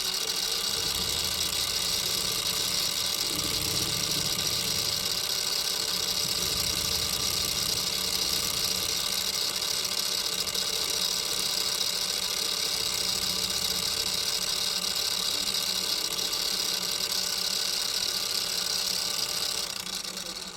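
A shop machine running steadily, a motor hum with a strong high hiss, then winding down near the end as it is switched off.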